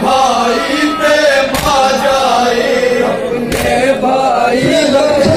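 A group of men reciting a noha, a slow Urdu mourning lament sung together without instruments, with a sharp beat about every two seconds that keeps time like the chest-beating of matam.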